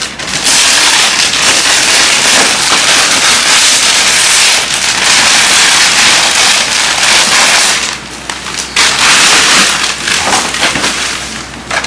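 Gift packaging crinkling and rustling loudly, close to the microphone, as a package is worked open by hand; a dense, continuous crackle for about eight seconds, then shorter, broken rustles near the end.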